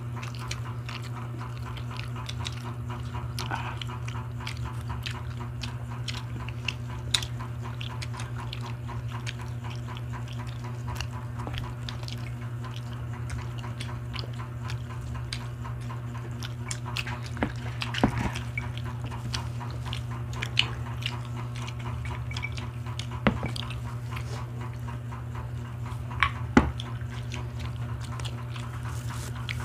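Close-up eating sounds of several people chewing grilled barbecue skewers and rice eaten by hand, with wet mouth noises and scattered sharp clicks and taps, over a steady low hum.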